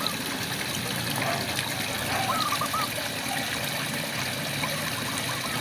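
Steady rain falling, with frogs calling over it in short runs of quick, chirping notes, about two seconds in and again near the end.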